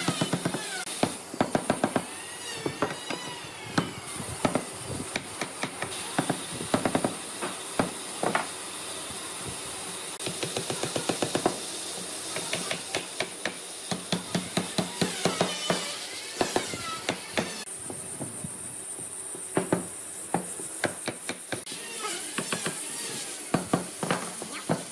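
Irregular sharp taps and knocks in quick clusters, from hand work in a woodworking shop, with short squeaky chirping glides at times over a steady hiss.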